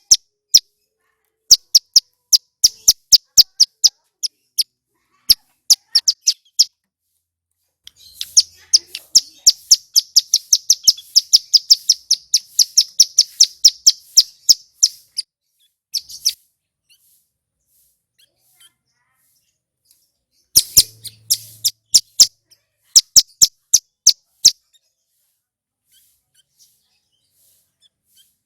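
Prinia (ciblek gunung, a male) singing: a series of sharp, high chip notes, then a fast trill lasting several seconds, a pause, and another burst of rapid notes before falling quiet near the end.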